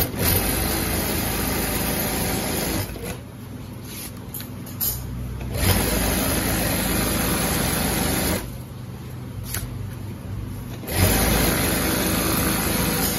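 Industrial lockstitch sewing machine stitching black bag fabric in three runs of a few seconds each, with quieter pauses between them.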